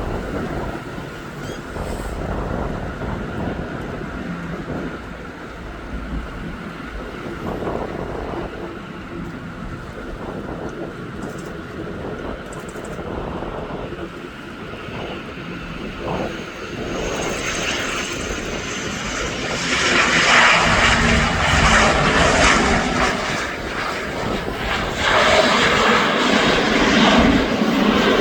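ATR 72-600 twin-turboprop airliner landing, its propeller engines growing much louder in the second half with two loud surges, over a steady rumble of wind on the microphone.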